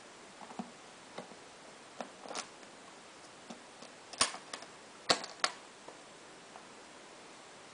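Metal latch of an aluminium carry case being worked open: a series of short sharp clicks and light knocks, with the three loudest clicks a little past the middle.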